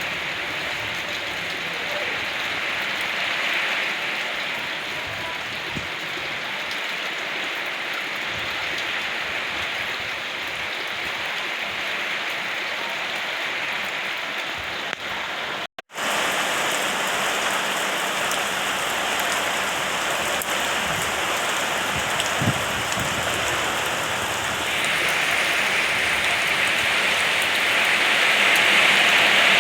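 Steady rain falling and pattering, with a brief break about halfway through, then growing heavier and louder near the end.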